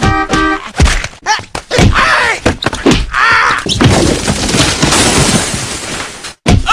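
A rapid string of cut-together sound clips: sharp thuds and knocks, a brief electronic tone at the start, two rising-and-falling yells, then a loud, noisy crash-like rush lasting a couple of seconds that cuts off abruptly near the end.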